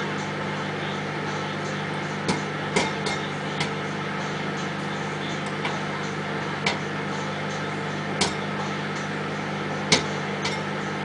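Microwave oven running with a steady hum while popcorn kernels pop inside it now and then, about ten sharp pops spaced irregularly.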